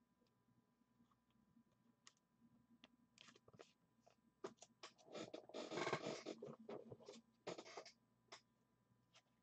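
Faint handling of a trading card: scattered light clicks and scratches, with a short scraping rustle about halfway through.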